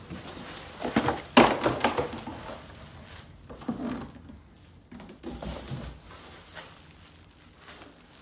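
Rustling and clattering of packaging and parts being handled, with a sharp knock about a second and a half in and softer handling noises later.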